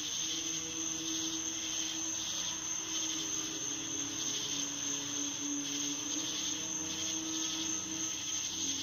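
A low, steady droning hum whose pitch wavers and steps slightly, over a constant high hiss: one of the unexplained 'apocalyptic' sounds heard from the night sky.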